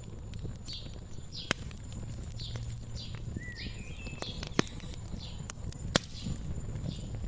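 Wood fire crackling with a low rumble and three sharp pops, the loudest sounds, while small birds chirp over it in quick repeated short falling notes, with one rising call in the middle.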